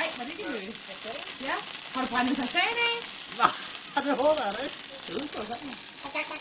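Christmas tree burning in a tall open blaze: a steady hissing, sizzling crackle with a sharp pop about three and a half seconds in. People talk indistinctly in the background.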